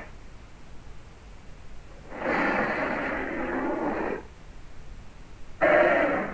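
Vintage Megalosaurus dinosaur roar sound effect: one roar about two seconds long starting about two seconds in, then a louder one starting near the end, with a low hiss between them.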